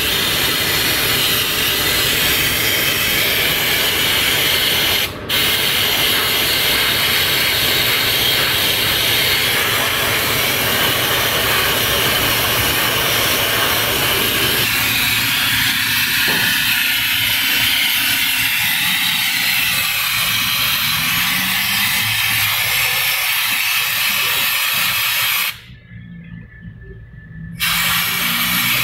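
Steady hiss of a pressurised spray washing down an engine bay. It stops briefly about five seconds in and again for about two seconds near the end.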